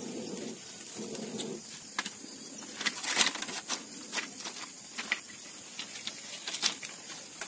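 Thin split-bamboo strips clicking and rustling as they are woven by hand into a panel, with scattered sharp clicks. A dove coos in the first second and a half.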